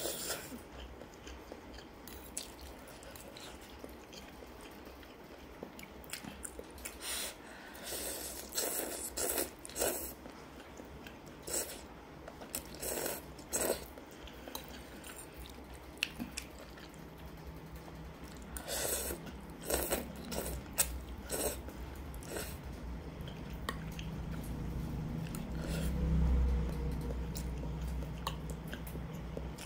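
Close-miked chewing and eating sounds from a mouthful of instant noodles and quail eggs, coming in clusters of short wet bursts with pauses between. A low rumble builds in the second half and is loudest about three-quarters of the way through.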